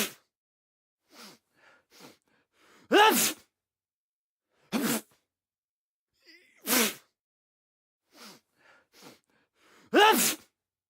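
A man sneezing repeatedly: about five loud sneezes a couple of seconds apart, several led by a few short catching in-breaths.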